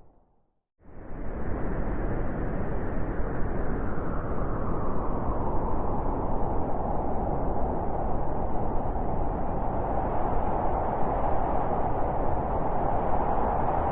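Howling blizzard wind, a steady rushing noise. It drops out to near silence at the start and comes back suddenly about a second in.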